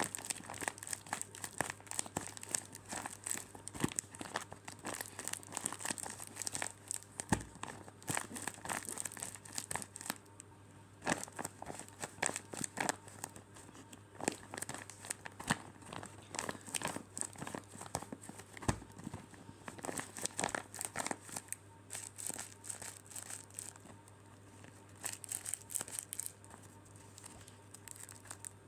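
Squishy toys being squeezed and handled, crinkling and crackling in many irregular sharp bursts.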